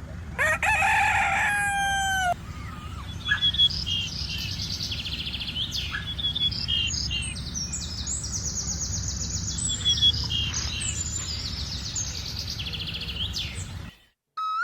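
A rooster crows once, a call of about two seconds that falls away at the end, then small birds chirp and twitter continuously over a low steady background rumble. Everything cuts off just before the end.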